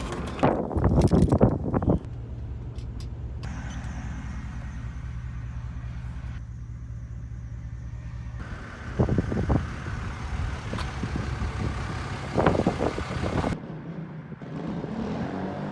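A 450-class sport quad's single-cylinder four-stroke engine idling steadily, blipped briefly twice, about nine and twelve seconds in. A few sharp knocks sound in the first two seconds.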